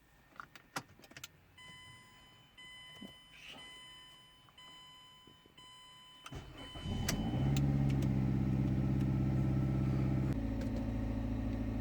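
A few clicks, then a car's warning chime beeping about once a second, then the Mazda CX-7's 2.3-litre turbo four-cylinder cranks and starts about six seconds in. It runs at a fast idle and settles to a lower idle about ten seconds in.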